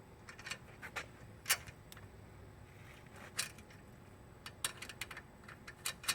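Irregular small metal clicks and clinks of bolt, washer and nut hardware being fitted by hand to a bicycle's rear brake stay arm, the sharpest clink about a second and a half in.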